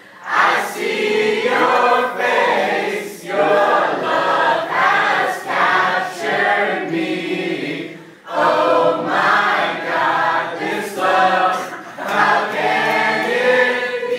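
A group of voices singing a song together, in phrases with short breaks between them.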